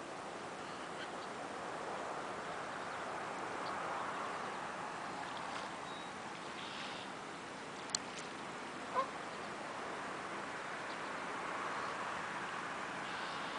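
A steady wash of lapping water and wind, with a few faint, brief higher calls here and there. A sharp click comes about eight seconds in, then one short call from a waterbird a second later.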